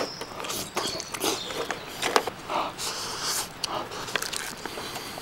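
A person eating close to the microphone: chewing and slurping hot stewed tofu and rice, with scattered small sharp clicks in between.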